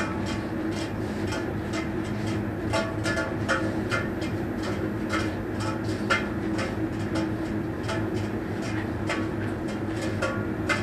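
A steady low hum with many irregular clicks and rattles over it.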